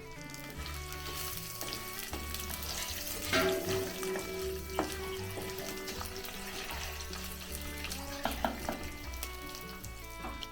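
Food frying in a pan, a steady sizzle, stirred with a few sharp utensil knocks against the pan about a third of the way in and again late on.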